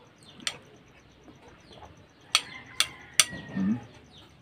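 Four sharp clinks from a white ceramic bowl held upside down while the last of its sauce is tipped out onto rice, one about half a second in and three close together in the second half.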